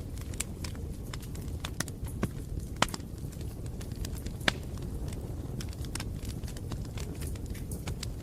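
Bonfire crackling: a steady low rumble of burning wood with irregular sharp pops and snaps, two louder pops about three and four and a half seconds in.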